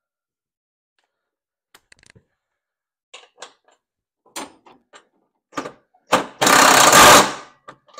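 A cordless DeWalt power driver with a socket runs for about a second on a mower deck idler pulley bolt, after a few light clicks and knocks of handling parts and the tool.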